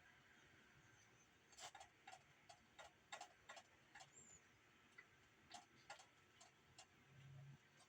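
Near silence with faint, irregular clicking: about a dozen sharp clicks spread unevenly over several seconds.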